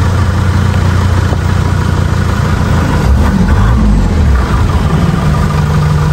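Engine of an off-road 4x4 heard from inside its cab, running at low revs while crawling over a rocky trail. About five seconds in, its pitch steps up and holds higher as the revs rise.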